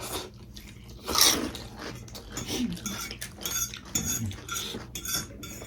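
Cutlery clinking against bowls and dishes during a meal of pani puri and spicy ramen, with many small clicks and one louder, longer noisy sound about a second in.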